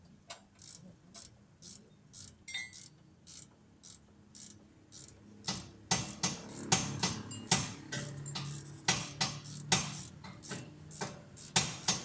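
Hand-tool work on the car's metal parts: a steady run of sharp metallic clicks, about two a second, that get louder and quicker about halfway through. A low hum joins in under them near the end.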